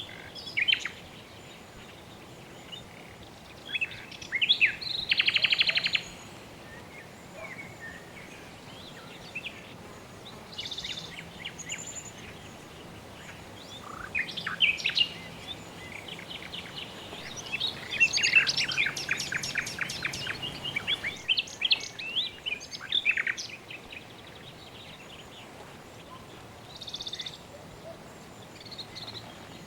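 Several birds chirping and trilling, with a fast rattling trill about five seconds in and a dense burst of calls about eighteen to twenty-one seconds in, over a steady background hiss.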